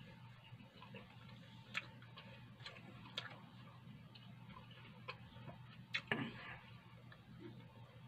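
A man chewing a mouthful of rice and boiled pork with his mouth closed: a few faint, irregularly spaced mouth clicks and a short smack about six seconds in, over a steady low hum.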